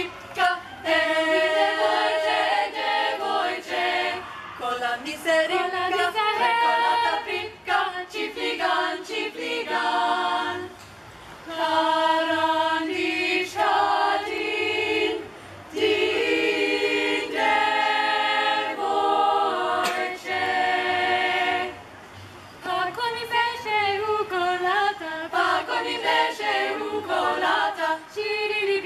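A women's a cappella group singing in harmony, voices only with no instruments, in phrases with a few brief breaks between them.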